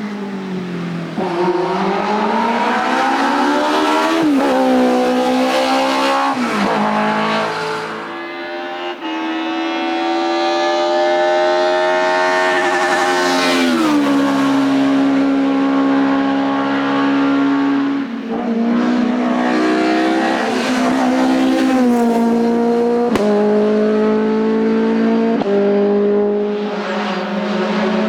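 Hillclimb race car engines at full throttle, each run climbing in pitch and dropping sharply at each gear change, over and over.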